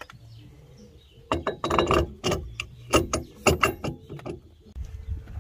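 Metal wheel spacer clinking and knocking against the hub and its wheel studs as it is pushed on by hand: a quick, irregular run of about ten sharp metallic knocks lasting about three seconds, after which a steady low rumble takes over.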